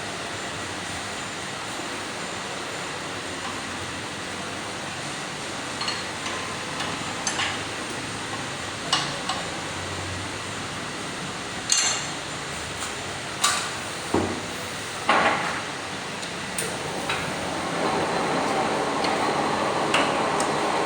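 Sharp metallic knocks and clinks at irregular intervals, about ten in all, over a steady mechanical hum. Near the end a louder, steady grinding-like machine noise builds up.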